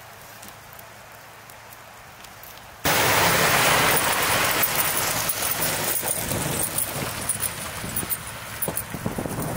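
A low steady hiss, then, about three seconds in, a sudden loud rush as semi trucks pass close on a snow-covered highway. The tyre and wind noise comes with a low engine rumble and slowly eases off.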